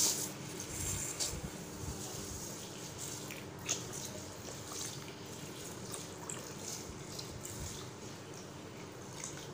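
Water poured from a bottle into a glass bowl of dry lentils and broken rice: a steady, quiet pouring and splashing as the grains are covered, with a few small clicks.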